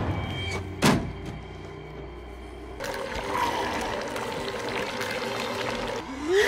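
Horror film soundtrack: one sharp hit about a second in over low, sustained score tones, then a rushing, hissing sound-effect bed with faint music from about three seconds in.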